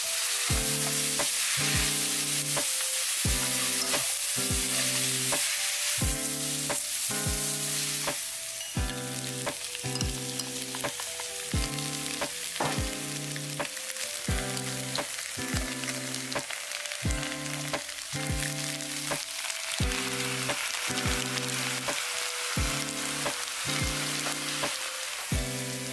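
Pad thai ingredients (rice noodles, shrimp, pork, fried tofu) sizzling in oil in a stainless steel frying pan, louder for the first eight seconds or so, then lower. Soft background music with a steady beat plays underneath.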